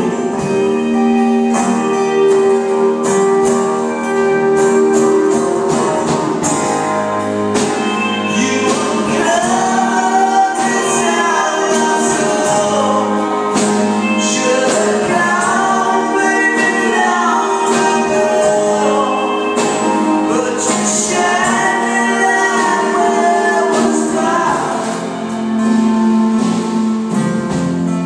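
Live music with singing over steady held instrumental chords, played through a PA system.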